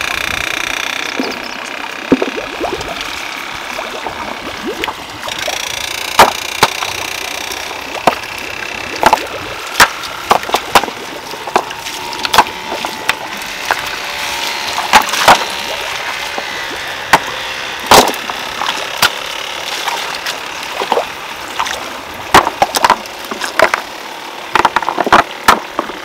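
Stones being set and stacked by hand to line a ditch: irregular sharp clacks and knocks, many of them, over a steady rush of flowing water.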